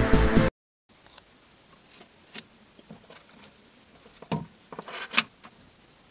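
Electronic background music cuts off about half a second in. Then come small clicks and light rustling of hands handling wiring and a spring-clip speaker terminal block, with the loudest clicks about four and five seconds in.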